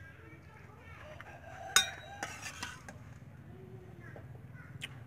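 A spatula scrapes stir-fried tofu, pork and bean sprouts out of a metal wok into a glass bowl, with one sharp ringing clink about two seconds in and a few short scrapes and knocks after it.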